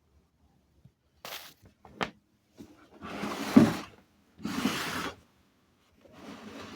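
Several short bursts of rubbing and scraping, with a sharp knock about two seconds in and the loudest scrape about three and a half seconds in.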